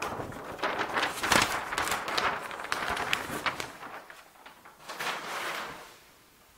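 Large paper flip-chart sheets being turned over and handled: rustling paper for about four seconds, with a shorter rustle about five seconds in.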